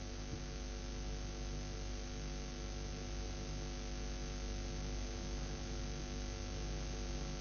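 Steady electrical mains hum with a constant hiss, a stack of even unchanging tones from the microphone and sound system.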